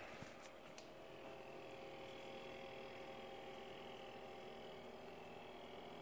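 Secop (formerly Danfoss) compressor of a 40-litre 12-volt fridge/freezer running on max just after starting up: a very quiet, steady hum with a thin high whine above it.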